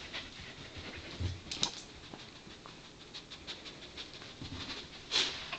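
Pembroke Welsh Corgi panting and sniffing while searching for hidden treats, a run of quick short sounds with a louder one near the end.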